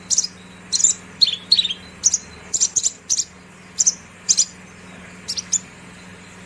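Branjangan (Horsfield's bushlark) singing: a run of about a dozen short, sharp, high chirps that stops about a second before the end, over a faint steady low hum.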